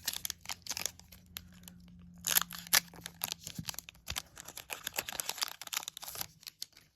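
Foil trading-card pack wrapper being torn open and crinkled, with irregular crackles and a few sharper, louder rips about two and a half seconds in.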